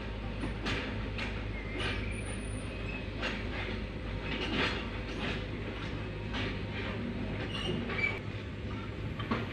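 Lovol FR150-7 crawler excavator travelling on its tracks: a diesel engine runs steadily under repeated squeaks and clanks from the steel track chains, roughly every half second.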